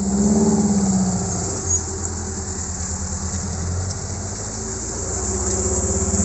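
Off-road 4x4 engine running at low revs as it crawls over a rough muddy track, picking up revs near the end.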